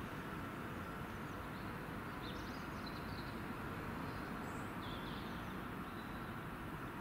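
Steady low background rumble, with small birds chirping a few times in the middle.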